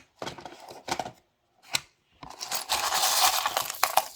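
Pieces of faced rough opal clinking and rattling together as a large parcel of stones is handled, with a few short rattles in the first two seconds, then a longer, louder clatter from a little past two seconds.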